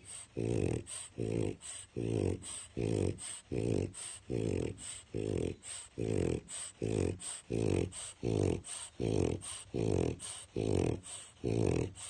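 French bulldog snoring very loudly while asleep, a rattling snore on every breath in a fast, steady rhythm of about two to three snores a second.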